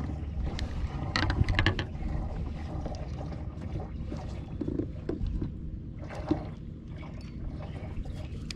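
Steady low rumble with scattered clicks and knocks: fishing gear handled aboard a small fishing boat on the water.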